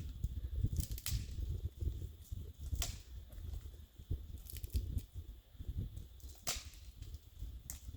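Open wood fire crackling, with sharp pops a second or more apart over a low rumble.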